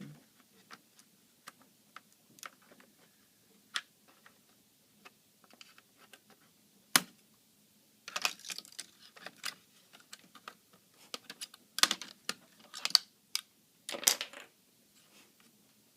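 Small plastic clicks and taps from hands working inside an opened laptop, prying out an internal speaker: scattered single clicks, one sharp click about halfway, then denser runs of clicking.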